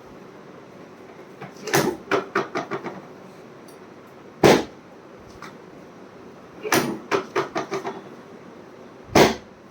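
Knocks and thumps from a chiropractic adjustment, in a repeating pattern: a quick run of about six sharp knocks, each fainter than the last, then a single hard thump. The pattern comes twice.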